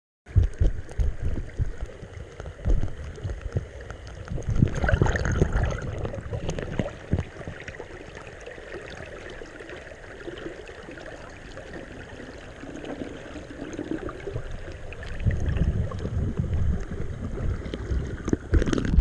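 River water sloshing and gurgling against and into a cardboard boat's hull, heard from inside the hull, with irregular bumps and knocks. It grows louder and busier near the end as water washes over the boat and it swamps.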